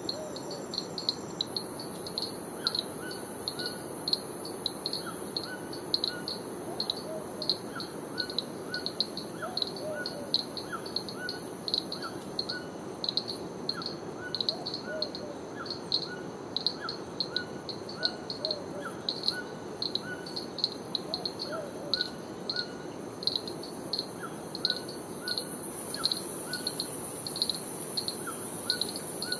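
Tropical forest ambience: a high chirp repeats about twice a second, with softer bird calls scattered among it, over a steady insect hiss and an even rushing noise underneath.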